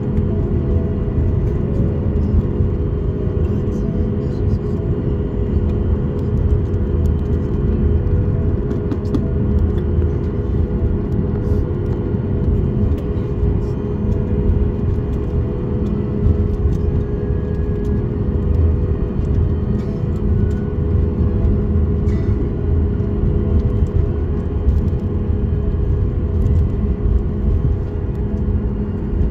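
Boeing 737 MAX 8 taxiing, heard from inside the cabin: its CFM LEAP-1B engines run steadily with a constant hum over a deep rumble from the aircraft rolling along the taxiway.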